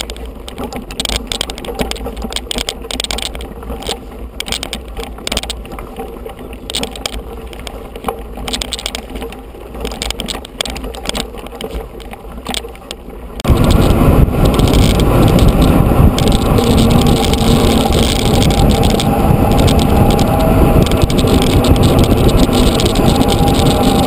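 A bike-mounted camera rattling and clattering as a mountain bike rolls over a loose-stone gravel track. About halfway through this changes abruptly to loud, steady wind noise on the microphone as the bike rides fast on asphalt.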